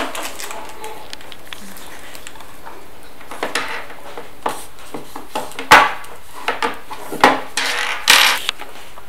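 Accessories being handled and set down on a tabletop: cable plugs, a foot switch and plastic-wrapped cartridges knocking and clicking against the wood, with some plastic rustling. The sounds start about three seconds in as a string of separate knocks, the loudest near the middle, with a longer rustle near the end.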